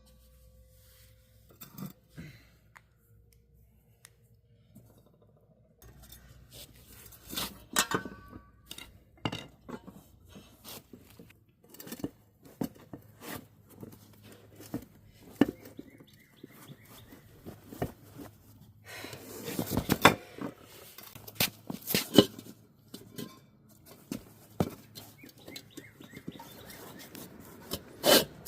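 Scattered clicks, knocks, scrapes and rubbing from a tyre and inner tube being worked onto a wheel rim by hand, with a denser burst of rubbing and rustling about two-thirds of the way through.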